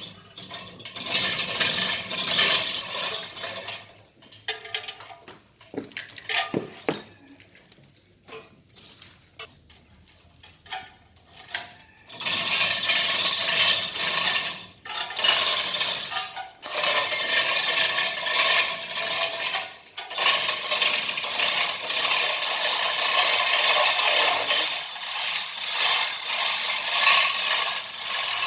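Metal hand tools and alternator parts clinking and rattling during disassembly, with scattered sharp clicks. About twelve seconds in this gives way to a long stretch of dense, continuous metallic noise, broken by two short pauses.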